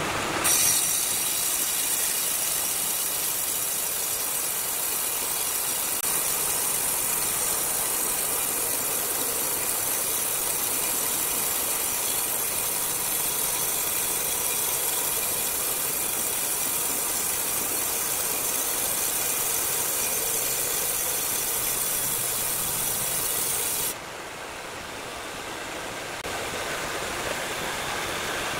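Large horizontal band saw blade cutting lengthwise through a thick hardwood slab: a steady, loud hissing rasp over the running machine. Near the end the hiss cuts off suddenly, leaving the saw running more quietly.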